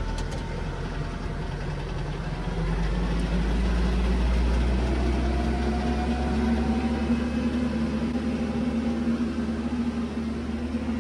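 Kubota KX080-4 excavator's diesel engine running under load, getting louder about two and a half seconds in and holding a strained note with a slowly rising whine as the machine is moved and worked.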